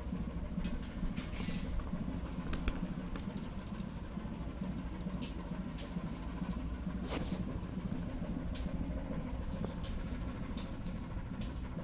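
A ship's engine running steadily, heard on deck as a low rumble, with a few brief faint higher sounds scattered through it.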